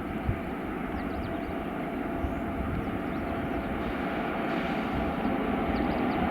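An approaching train hauled by a WAP7 electric locomotive, a steady rumble that grows slowly louder as it draws near.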